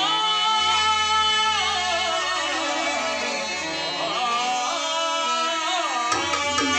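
Music with singing: a voice holds long, wavering notes of an Indian melody over sustained instrumental tones.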